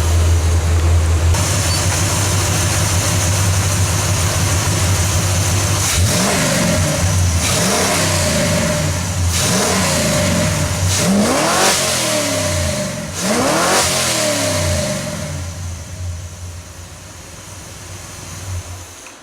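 Big-block V8 in a squarebody Chevy pickup idling, then blipped about five times from about six seconds in, the revs rising and falling each time, before the sound fades away near the end. It is being run to circulate coolant through a newly filled radiator.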